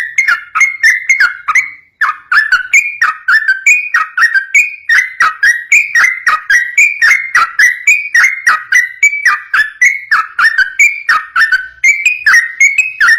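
Yellow-vented bulbul singing its rapid, unbroken 'ropel' song: quick clear whistled notes chained together several a second, with a short break about two seconds in.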